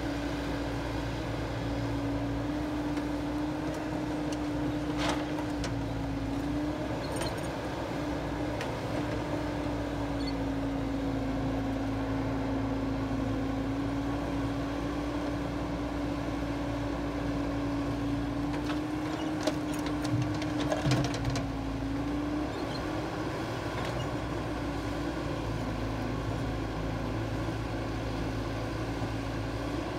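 Caterpillar excavator's diesel engine running steadily, its pitch dipping and recovering as the hydraulics take load, with a dump truck's engine idling under it. Now and then there are sharp knocks as earth and stones drop into the steel truck bed, the loudest cluster about two-thirds of the way through.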